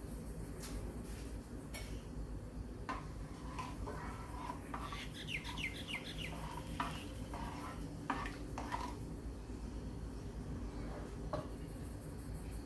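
Metal utensil clinking and scraping against a karai now and then, over a steady low hum. A short quick series of bird chirps sounds about halfway through.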